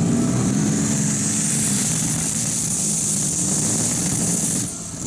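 Light modified pulling tractor's engine running hard at high revs under load during a pull, with a strong high hiss over the low engine note. The sound drops abruptly near the end as the engine comes off the throttle.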